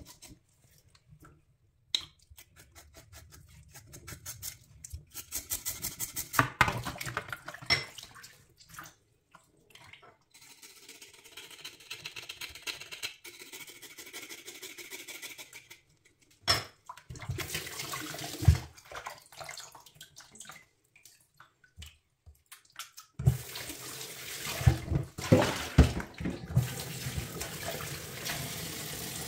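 A raw buffalo tongue being scraped with a knife and rubbed by hand in a plastic bowl of water in a stainless steel sink, with wet scraping, splashing and clicks in irregular bursts. About 23 seconds in, the kitchen tap starts running steadily into the bowl.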